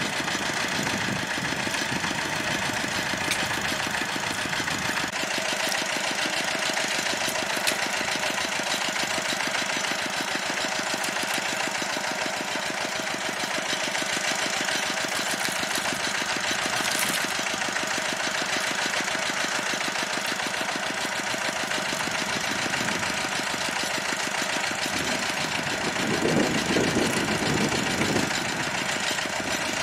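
Engine of a pond-draining water pump running steadily with a fast, even knocking rhythm. A louder stretch of nearby noise comes in near the end.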